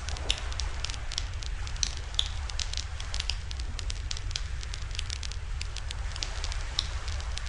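Wood fire crackling in a barbecue fire stand, with rapid irregular pops and a few louder snaps, over a steady low rumble.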